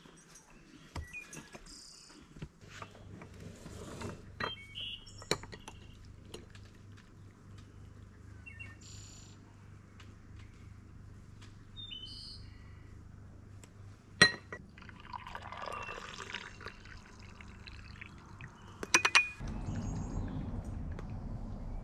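Liquid being poured for about two seconds, a little past the middle, among scattered clinks and knocks of kitchenware, the sharpest two coming a few seconds apart. Birds chirp now and then, and a low rumble sets in near the end.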